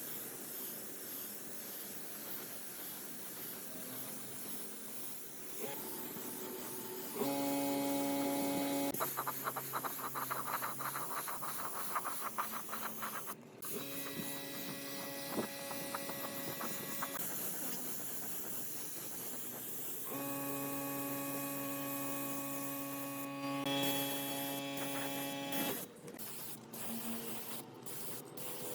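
Electric motor of a workshop power tool running in several short runs of a few seconds each, a steady pitched whine that starts and stops, with a noisier working hiss between runs.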